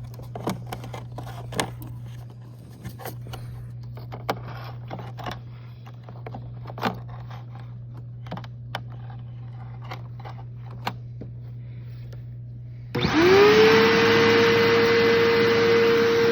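Scattered clicks and knocks over a low steady hum. Near the end the Bissell Powerforce Bagged upright vacuum is switched on: its motor spins up with a rising whine and settles into a loud, steady run.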